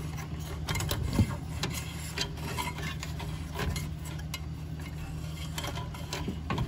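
Light scattered clicks and taps of wire and sheet metal being handled as a lead wire is fished through the hole in an oil burner's metal relay control box, over a steady low hum.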